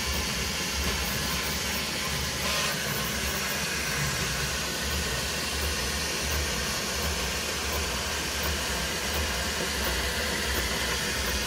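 Elegoo Centauri Carbon 3D printer printing, its fans and moving toolhead making a steady whir with an even hiss over a low hum.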